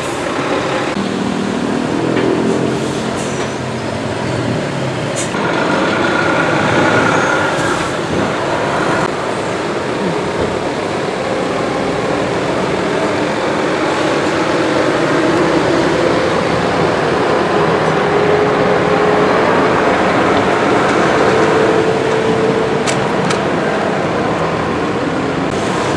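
Heavy diesel articulated trucks passing close by one after another, their engines running under load as they cross a junction, over continuous road traffic.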